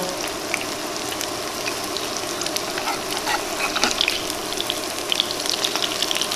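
Potato latkes sizzling in a thin layer of hot oil in a cast iron skillet: a steady frying hiss with scattered sharp crackles and pops.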